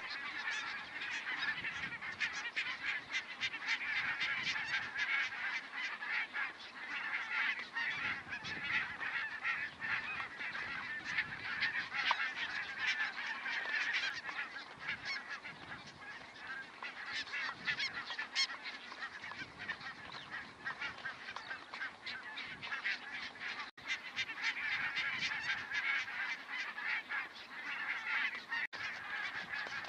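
A flock of barnacle geese calling, with many short calls overlapping continuously.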